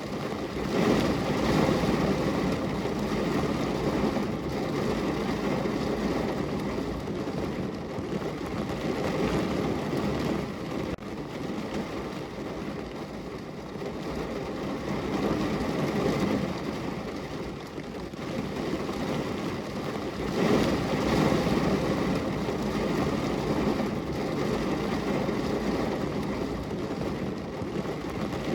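Heavy rain falling on a car's roof and windows, heard from inside the car as a steady hiss that swells louder in waves, at the start, about halfway and again past two-thirds of the way.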